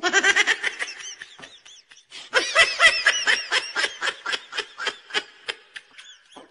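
A person laughing hard in a long run of quick, pitched 'ha' pulses, with a short lull about two seconds in before the laughter picks up again.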